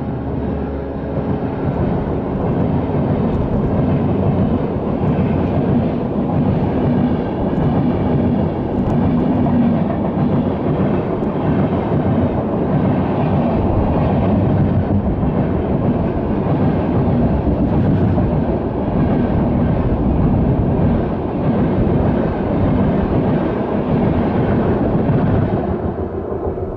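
Express passenger train running past close by, a steady loud rumble of coaches on the rails that starts to fade near the end as the tail of the train goes by.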